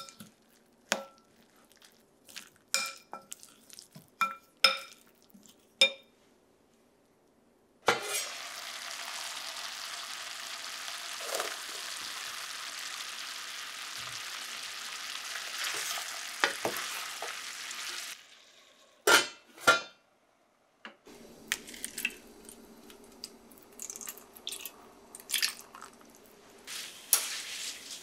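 A wooden spoon taps against a glass mixing bowl several times, each tap ringing briefly. Then potatoes, beef and onion sizzle in a stainless steel frying pan as green beans are stirred in: a steady hiss of about ten seconds. Two sharp clicks and light kitchen clatter follow.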